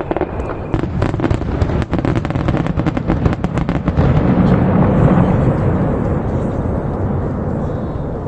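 Fireworks going off: a quick run of sharp crackling pops, then a heavy, low, rolling boom about four seconds in that slowly dies away.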